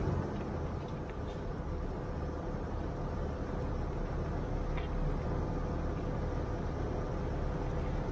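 Off-road vehicle engine running at low speed as it crawls along a rutted dirt trail: a steady low rumble with a faint steady whine and a couple of light knocks.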